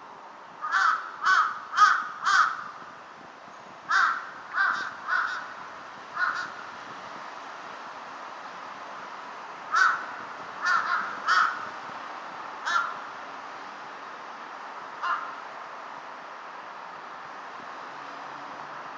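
Large-billed crows cawing back and forth: a quick run of four caws, another four after a short pause, then scattered single and paired caws with longer gaps, the last one fainter.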